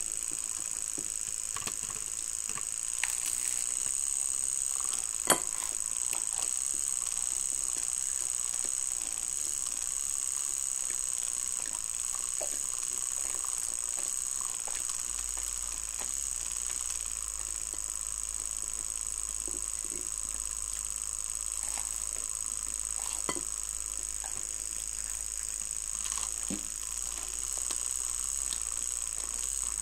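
Handheld milk frother running steadily, whisking a glass of sweetened iced coffee, with a steady high-pitched whine and a couple of light knocks a few seconds in.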